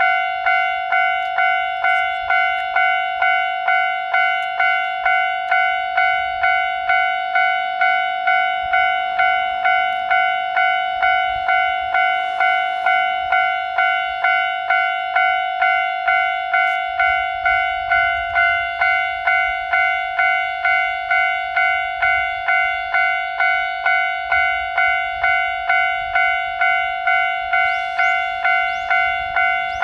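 Japanese railway level-crossing alarm ringing its electronic bell tone, one decaying strike repeated steadily a little under two times a second.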